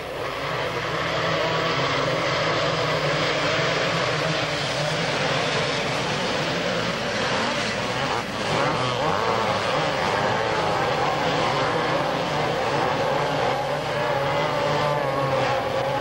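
Several motocross dirt bikes racing together, their engines buzzing and revving at once. The engine pitches rise and fall throughout, most plainly in the second half.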